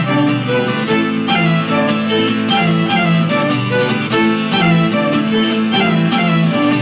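Two violins bowing a melody of held notes in an acoustic folk-pop song, over a quick, even strummed accompaniment.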